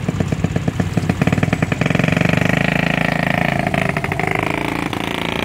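Motorcycle engine running close by with a quick, even beat, then revving up about two seconds in, its pitch sliding as it goes.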